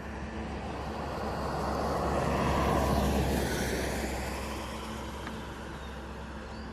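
A vehicle passing by: its road and engine noise swells to a peak about three seconds in, then fades away.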